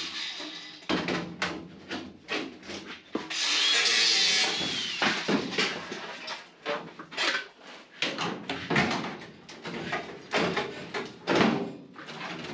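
Large sheet-metal trunk floor panel with its wheel tubs attached being wrestled into a car body: irregular metal clunks, knocks and scrapes as the tight-fitting panel catches on the body. There is a longer grating scrape about three and a half seconds in.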